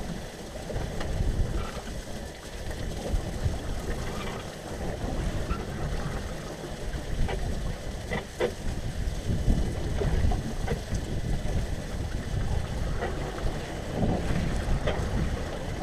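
Wind buffeting the microphone and lake water against an aluminium boat hull, with scattered light clicks and drips as a gillnet is pulled in over a net-hauling roller into a tub.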